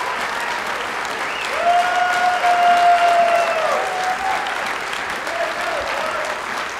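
Audience applauding after a line in a speech. About a second and a half in, one voice in the crowd holds a long, high cheer over the clapping for a couple of seconds.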